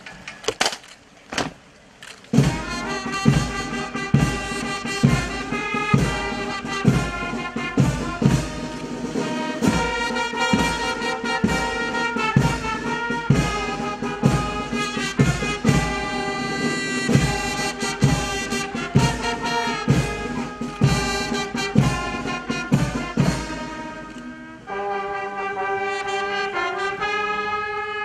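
Brass band playing, with trumpets and trombones over a steady drum beat; it starts about two seconds in after a few sharp knocks, and the music thins out to a quieter passage near the end.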